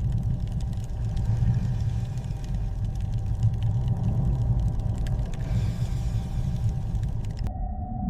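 A steady deep rumble with faint scattered clicks, cutting off abruptly near the end.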